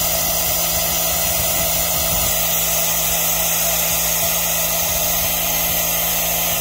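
Compressed air rushing through the venturi of a cooling-system vacuum fill tool in a steady, loud hiss. The tool is pulling the cooling system down to about 25 on its gauge. The hiss cuts off suddenly at the end.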